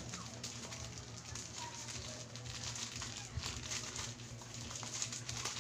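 Parcel packaging rustling and crinkling as it is opened by hand, a scatter of light clicks and crackles over a low steady hum.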